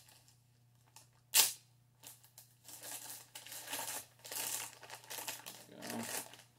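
A plastic anti-static bag and its packaging being handled to take out a network module: one short, loud rip about a second and a half in, then irregular crinkling of the bag for several seconds.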